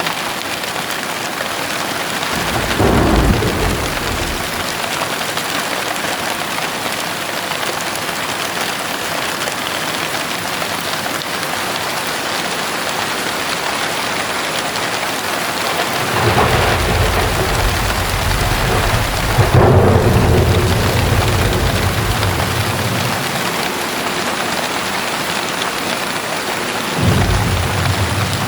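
Heavy rain falling steadily with thunder: a short rumble about three seconds in, a long rolling rumble with a loud crack past the middle, and another rumble near the end.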